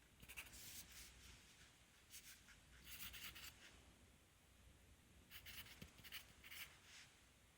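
Pencil writing on paper: short scratchy strokes in clusters, with brief pauses between groups of strokes.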